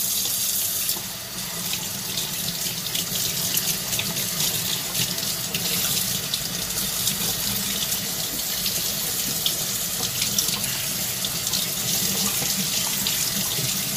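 Kitchen tap running steadily into a sink while a gutted yellow croaker is rinsed under the stream, water splashing off the fish into the basin.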